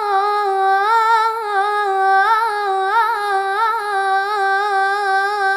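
A teenage girl singing solo with no accompaniment, holding one long Arabic-style melismatic vowel at a steady pitch, decorated with quick ornamental turns.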